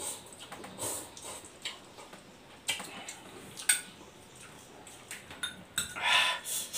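Eating instant noodles: a fork clicks and scrapes against the bowl now and then, amid quiet mouth sounds of eating, with a louder breathy noise a little after six seconds in.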